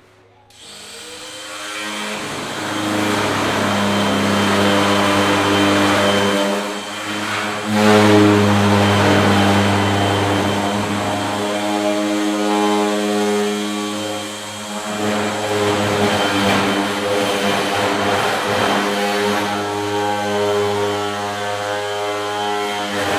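A power tool's motor running steadily, a hum with hiss over it, easing off briefly twice before it stops.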